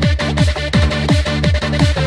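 Electronic dance music with a fast, steady kick drum over a bass line.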